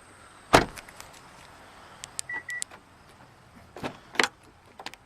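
Car doors of a 2011 Hyundai Elantra: a door shuts with a thump, then two short high beeps with clicks come about two seconds in, then two more clunks of a door latch and handle come near the end.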